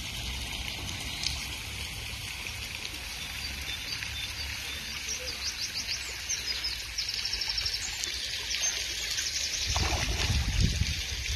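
Steady outdoor background with a few runs of rapid, high bird chirps, then, about ten seconds in, a louder splashing at the water's surface as a carp takes floating bread bait.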